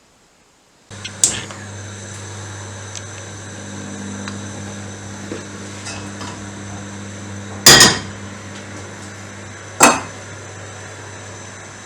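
Kitchen knocks: three sharp hits of cookware or utensils, the loudest and longest about three-quarters of the way through, over a steady low hum that starts about a second in.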